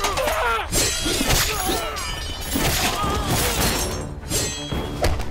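Swords clashing and striking in a sword fight: repeated sharp metal clangs and hits mixed with men's cries, over background music that becomes steadier in the second half.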